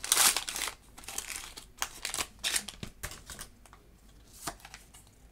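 Foil booster-pack wrapper crinkling as it is torn open and pulled off the cards. The crinkling is loudest at the very start, comes in short crackles for the first few seconds, then fades to light rustles.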